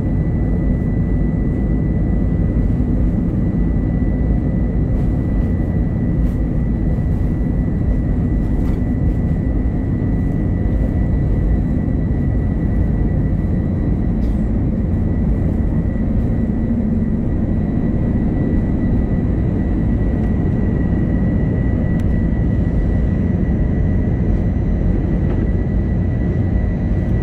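Airbus A321's jet engines at takeoff power, heard inside the cabin through the takeoff roll and climb-out: a steady loud rumble with a thin, steady whine above it.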